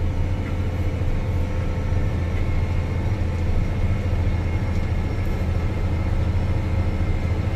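John Deere 8RX track tractor heard from inside its cab: the engine drones steadily under load while pulling a disk through wheat stubble, with a low hum and a faint high whine.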